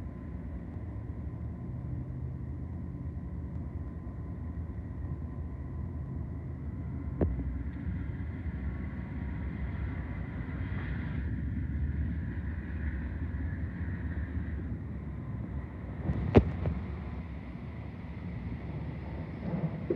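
A train rumbling steadily as it runs, with a sharp knock about seven seconds in and a louder one about sixteen seconds in.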